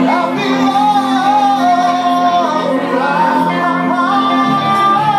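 Live band playing with a lead singer, a steady bass line underneath and long held notes in the melody.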